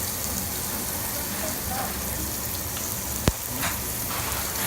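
Meat sizzling steadily on a Korean barbecue table grill, with one sharp click a little over three seconds in.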